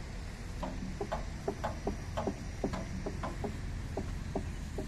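Irregular short clicks and ticks, about three or four a second, over a steady low hum.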